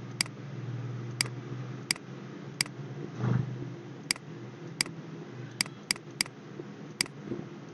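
Computer mouse button clicking about ten times at irregular intervals as keys are pressed on an on-screen calculator emulator, over a steady low hum.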